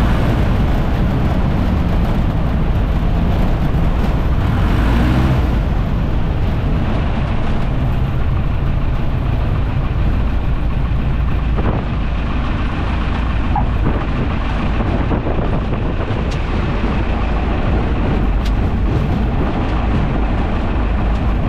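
Cockpit sound of a Piper J3 Cub's 65-horsepower engine and propeller running, with heavy wind noise, through a three-point crosswind landing and rollout on the runway. A few brief knocks come in the second half.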